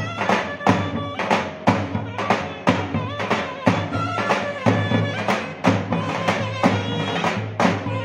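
Mehter-style davul drum and zurna: a steady, loud drum beat about three strokes a second under a shrill, wavering zurna melody.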